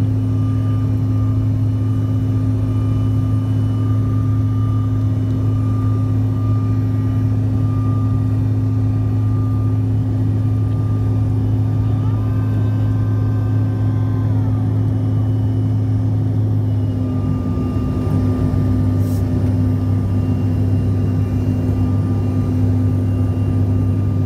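Cabin noise of a Bombardier CRJ-700 in its climb after takeoff: the rear-mounted GE CF34-8C turbofans drone steadily with a deep hum. The low hum wavers and changes about two-thirds of the way in.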